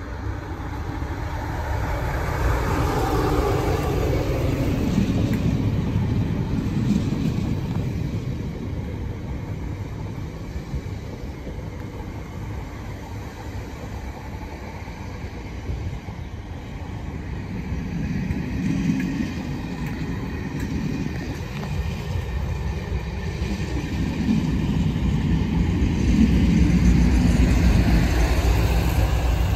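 A freight train passes, led by a class 47 diesel locomotive with a Sulzer engine, hauling a dead class 458 electric multiple unit on its own wheels. The locomotive goes by in the first few seconds, then the unit's bogies roll past over the rails. A trailing class 56 diesel locomotive with a Ruston-Paxman engine brings the loudest part near the end.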